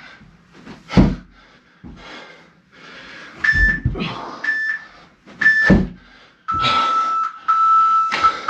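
Workout interval timer beeping: three short high beeps about a second apart, then a long, lower beep near the end, the countdown marking the end of the final work interval. Loud thumps and hard breathing from the exerciser come between the beeps.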